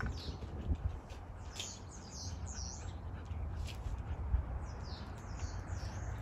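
Small birds chirping in two short runs of quick, high, sweeping notes, one about a second and a half in and another about four and a half seconds in, over a low steady rumble.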